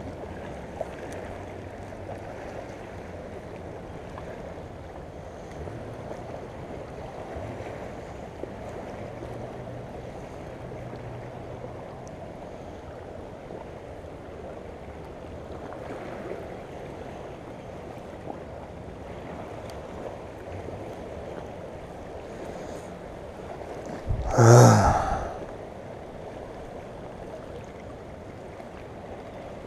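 Steady rushing of fast-moving floodwater. About 24 seconds in, a loud rush of air hits the microphone for about a second.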